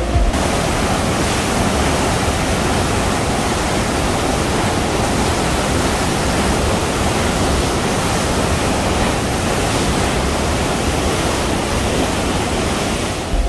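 Steady, loud rush of churning white water as reservoir water pours out into the head of a wide canal.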